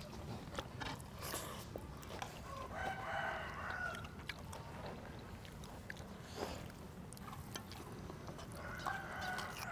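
A rooster crowing: one call of about a second and a half starting near the three-second mark, and a second call near the end.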